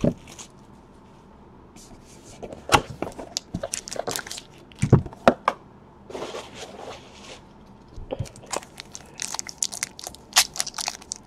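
Trading card box and foil pack being handled: a few scattered knocks and taps in the first half, then crinkling and tearing of the foil pack wrapper as it is pulled open over the last few seconds.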